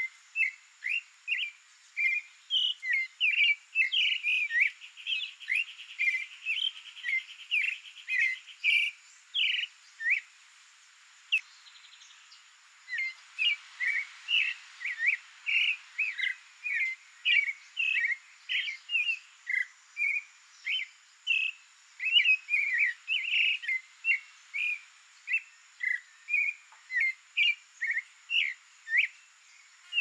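Creamy-bellied thrush singing: a long run of short, quick notes, two or three a second, with a pause of a couple of seconds about a third of the way through.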